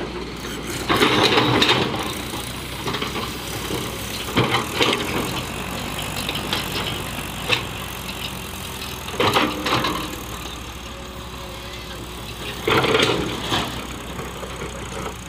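Crawler excavator's diesel engine running steadily while the machine digs and loads sand. Four louder noisy bursts of scraping and pouring sand rise over the engine as the bucket works.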